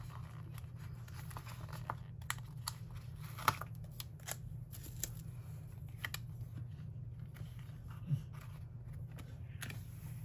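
Sticker being peeled off a paper sticker sheet and laid on crinkly wax paper, with the sticker book's pages rustling: scattered soft paper clicks and rustles over a steady low hum.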